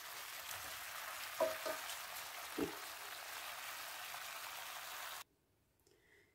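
Chicken drumsticks sizzling in olive oil in a frying pan: a steady frying hiss with three short knocks about one and a half and two and a half seconds in. The sizzle cuts off suddenly about five seconds in.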